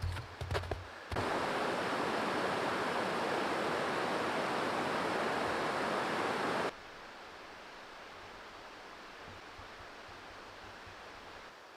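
A few sharp knocks, then rushing water of a mountain creek, steady and loud, cutting in abruptly about a second in and cutting off at about seven seconds, leaving a quiet steady background.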